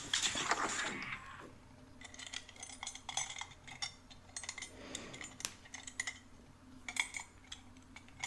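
A short rush of noise at the start, then a run of light clinks and clatter of small hard objects, like cutlery against dishes.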